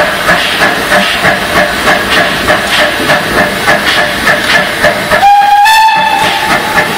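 TKt48 steam tank locomotive with a steady rhythmic steam beat, about three a second. About five seconds in, its steam whistle sounds one blast of about a second and a half, stepping slightly up in pitch.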